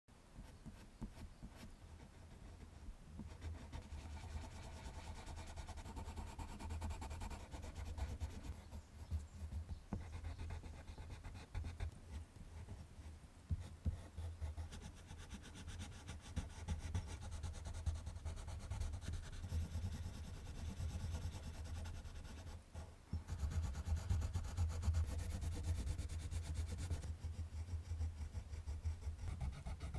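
Colored pencil scratching on paper in quick, short back-and-forth strokes as a dark area is shaded in, with a low rumble underneath. There is a brief pause about three-quarters of the way through, and the strokes are louder after it.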